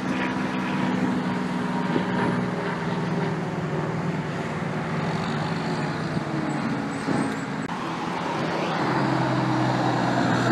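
Diesel truck engines and road traffic: a dump truck's engine drones steadily as it pulls away with cars passing. About three-quarters of the way through, a semi truck's diesel engine comes in and grows louder as it approaches.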